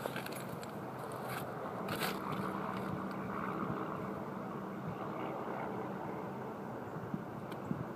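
A steady low mechanical hum with a faint even pitch throughout, with a few short scrapes and clicks close to the microphone in the first two seconds.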